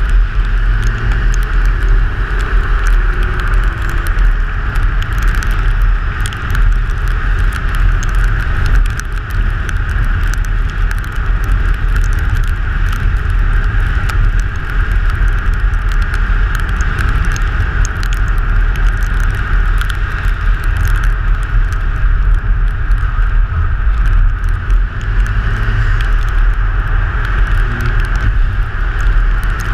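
Rally car at speed on a special stage, heard through an outside-mounted camera. Heavy wind rumble on the microphone and steady road noise with many small ticks cover the engine, whose pitch is faintly heard rising and falling near the start and near the end.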